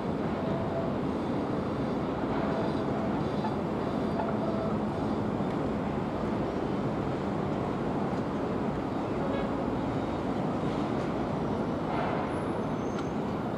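Steady, even rumble of distant rail and road traffic.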